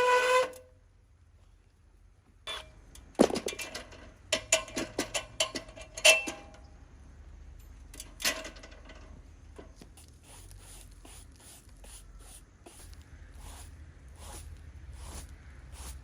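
A chainsaw running at speed cuts off about half a second in. It is followed by scattered sharp knocks and ringing metallic clinks, the loudest about three and six seconds in. Then come regular short scuffs about twice a second.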